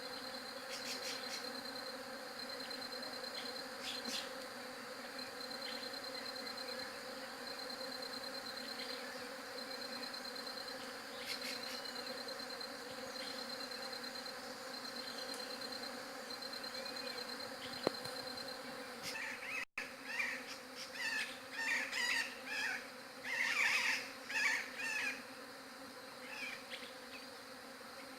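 A swarm of bees buzzing as a steady, even hum. Over most of the first two thirds a high, evenly pulsed insect trill runs alongside it. After a brief dropout about two thirds in, a run of louder short chirps comes in for several seconds.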